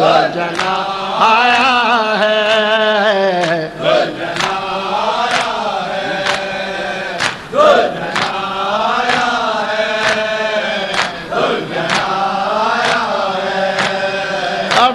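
Men's voices chanting a noha refrain in unison, drawn out and mournful. Sharp, regular slaps of mourners beating their chests (matam) keep time under the chant.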